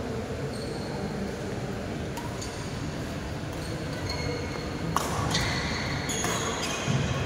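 Badminton rally: a shuttlecock struck back and forth with rackets, making a few sharp hits that are loudest in the second half, over the steady noise of a reverberant hall. Short high squeaks come in between the hits.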